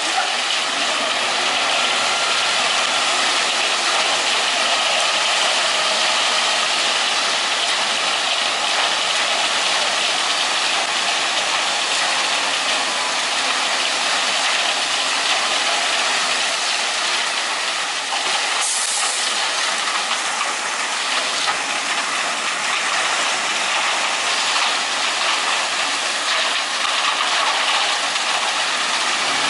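Steady, loud hissing noise from working machinery, even throughout with no clear rhythm, and one brief click about nineteen seconds in.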